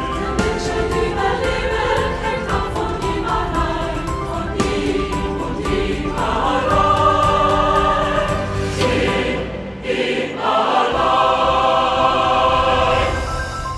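Film soundtrack music with a choir singing sustained chords over light rhythmic strikes. The music thins briefly about ten seconds in, then the choir chords swell again.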